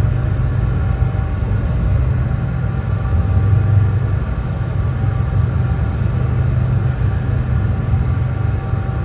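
Brown noise: a steady, deep rushing hiss weighted heavily to the bass, unchanging throughout.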